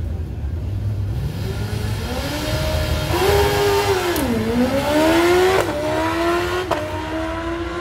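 Drag-racing motorcycle launching hard down the strip. The engine note climbs steeply and drops back several times as it shifts through the gears, with two quick shifts near the end.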